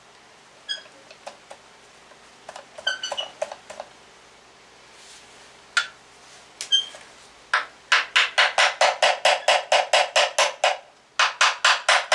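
Metal hand tools clinking and tapping against the engine's cover, with a few ringing metallic pings. In the second half come two runs of quick, evenly spaced sharp clicks, about five a second.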